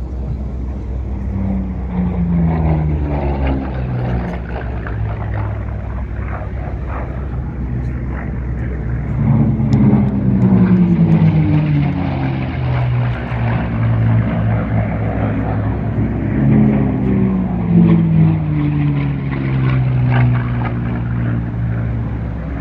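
V-12 piston racing warbirds, an Allison-engined racer leading Merlin-engined Mustangs, flying past at race power. Each engine note falls in pitch as a plane goes by, three times, over a steady low rumble.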